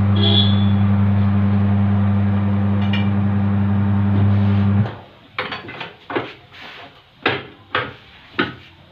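Tyre-changer machine's electric motor running with a steady hum as it turns the wheel, cutting off abruptly about five seconds in. Then about seven sharp metal knocks and clanks from the steel tyre lever and rim as the tyre is worked off.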